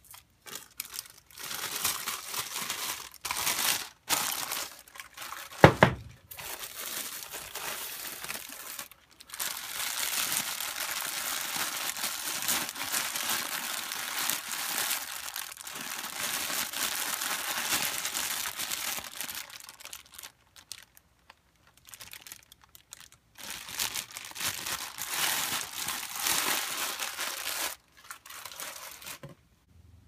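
Clear plastic wrap and bags crinkling and rustling as they are handled and pulled away, in long stretches with short pauses. A single sharp knock about six seconds in is the loudest sound.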